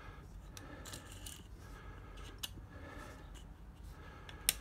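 Light handling sounds of small objects: rubbing and soft clicks, with a sharp click about two and a half seconds in and a louder one near the end.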